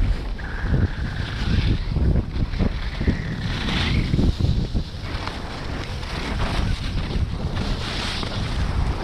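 Wind buffeting an action camera's microphone while skiing downhill, a gusty rumble throughout. Over it, the hiss and scrape of skis on packed snow comes up a few times during turns.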